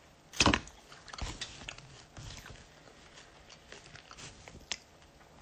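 Someone chewing a mouthful of crunchy cereal close to the microphone, with scattered small crunches. A single sharp knock comes about half a second in and is the loudest sound.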